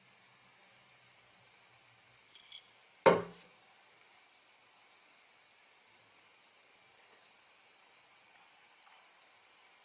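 Feeder crickets chirping in a steady, high, continuous trill. About three seconds in there are two faint clicks, then a single sharp knock that dies away quickly.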